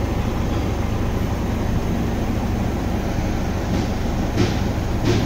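Petrol engine of a Nissan Urvan NV350 van idling with its A/C compressor running during refrigerant charging, a steady low mechanical hum. There are a couple of faint clicks near the end.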